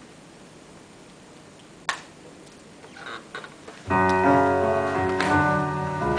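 Quiet hiss broken by a single sharp knock about two seconds in, then tango music with piano starts suddenly about four seconds in and plays on with strong accented beats.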